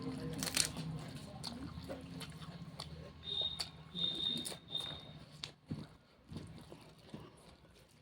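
Close-up eating sounds: someone biting into and chewing spicy jackfruit curry, with wet mouth clicks and smacks. A short, high thin tone sounds three times around the middle, and a low steady hum fades out in the first couple of seconds.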